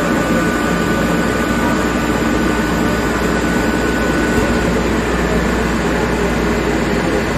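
Campbell Hausfeld 10 hp rotary screw air compressor running steadily, a loud machine drone with its cooling fan going and steady whining tones. About four seconds in it is switched from idling unloaded to loaded, drawing more motor current as it starts building pressure.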